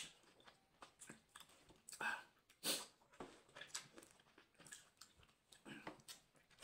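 A man's close-up eating sounds as he eats spicy meat from his fingers: chewing heard as short, separate bursts, the loudest about two and a half seconds in.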